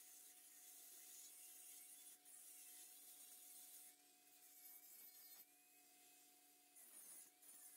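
Angle grinder cutting into a steel frame member, heard faintly: a grinding hiss that drops out briefly several times as the wheel comes off the metal.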